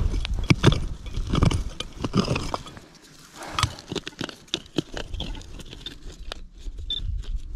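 A hand digging tool striking and scraping into dry, stony soil in quick repeated chops, loosening dirt and pebbles, easing to softer scrapes after about three seconds. Near the end a Garrett Pro-Pointer pinpointer gives a short high beep as it is brought to the hole.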